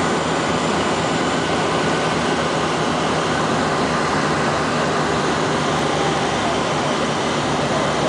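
Cabin noise of a de Havilland Canada DHC-6 Twin Otter on final approach: the steady drone of its two turboprop engines and propellers, heard from inside the cabin.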